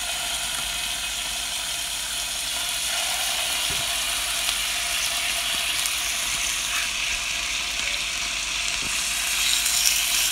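Marinated chicken wings sizzling and crackling in hot oil in a nonstick frying pan as pieces are laid in with metal tongs. The sizzle swells near the end as more wings go in.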